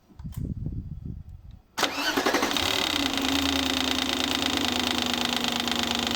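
Audi 4.2 V8 engine (ABZ) turning over briefly with uneven low pulses, then catching suddenly about two seconds in and settling into a steady idle. The engine runs with its valve cover off and its accessory drive belt removed.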